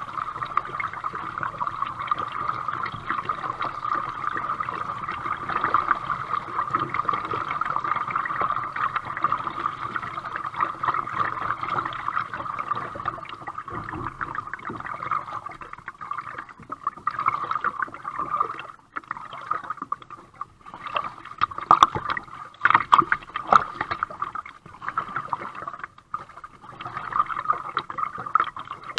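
Water gurgling and lapping along a kayak as it is paddled, with sharper paddle splashes in the second half.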